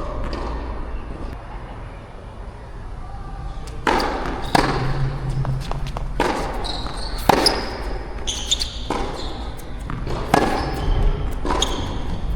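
Tennis ball struck by rackets and bouncing on the court in a rally: a series of sharp pops, about one a second, starting some four seconds in. Wind rumbles on the microphone throughout.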